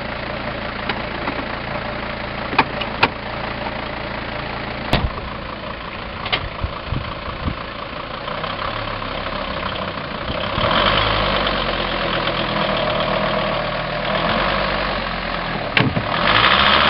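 Vehicle engine idling, with a few sharp knocks in the first few seconds while the tow rope is hooked on. About ten seconds in the engine revs up and holds under load, and it rises again near the end as it pulls a car out of a ditch on a tow rope.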